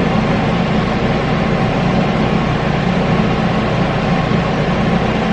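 Steady, even hum and hiss of a running machine.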